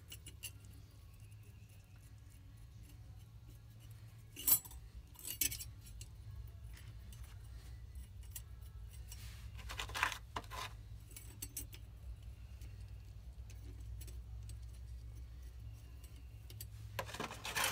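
Small steel parts clinking as a lock plate and bolts are handled and fitted by hand onto a fluid flywheel flange, with a few sharper metal clinks about four to five seconds in and again around ten seconds, over a steady low hum.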